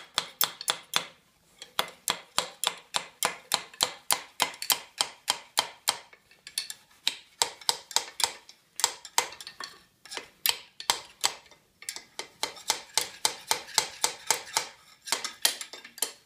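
Metal rod or tube tapped repeatedly down inside a John Deere B fan shaft housing to drive a seal that has not seated fully further down. Sharp, ringing metal-on-metal clinks, about four a second, with a few short pauses.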